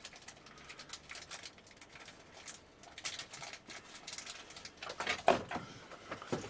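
Small irregular clicks and rustling of hands handling small workshop parts while picking out a tiny needle roller bearing, with a louder clatter about five seconds in.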